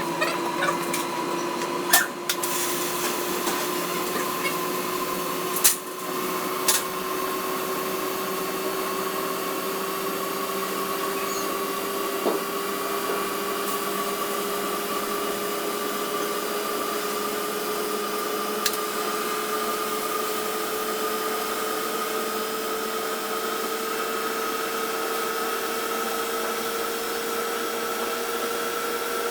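Steady machine noise: an even hiss with a whine that rises slowly in pitch, and a few sharp clicks in the first several seconds.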